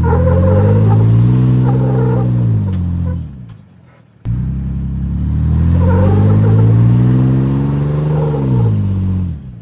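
Off-road vehicle's engine revving up and easing back down twice, the pitch climbing and then falling off. The first run fades out about three seconds in; the second starts abruptly about four seconds in and drops away near the end.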